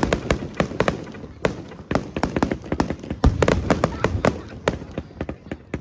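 Fireworks finale: a rapid volley of aerial shells bursting, many sharp cracks and bangs overlapping, with a deeper boom about three seconds in.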